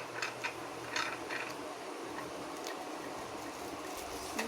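A few light clicks and rustles of parts being handled, mostly in the first second and a half, over a steady faint hiss.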